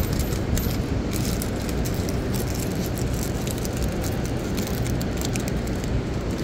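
Steady city street traffic noise, with a few light crinkles and clicks from plastic ice-cream-bar wrappers being handled.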